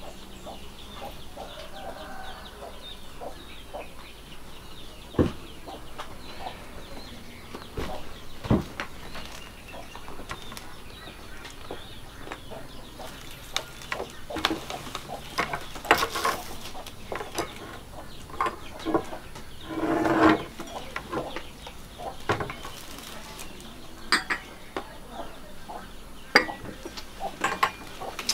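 Quiet room tone broken by scattered light knocks and clinks, such as a glass set down on its saucer and table, with chickens clucking now and then.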